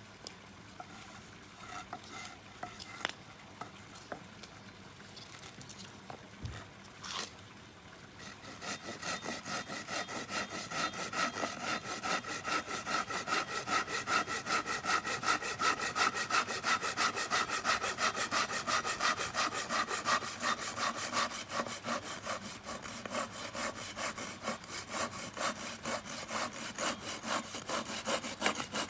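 Hand saw cutting through wood in steady back-and-forth strokes, about four a second, starting about eight seconds in after a few light clicks and knocks.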